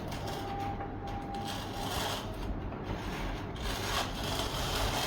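Light rubbing and scraping of a hand tool drawn over a foam tray insert, in a few uneven strokes.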